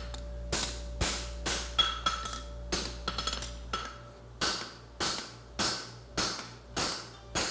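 Blacksmith's hand hammer striking a red-hot 1/2" x 1 1/4" steel bar on an anvil at about two blows a second, each blow ringing briefly. The bar is stood on end on the anvil face and its end hammered down, upsetting (bumping) the stock to thicken the toe of a horseshoe blank.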